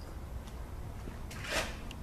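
A brief clunk of a metal oil-pump part from a 4F50N automatic transmission being handled on the workbench, about one and a half seconds in, over a steady low hum.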